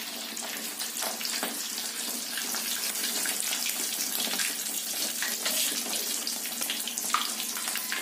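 A whole quail frying in hot oil in a wok: steady, dense sizzling with many small pops and crackles.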